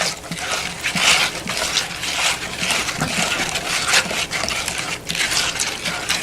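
A hand squishing and stirring wet glue-and-borax slime in a bowl, with irregular wet squelches.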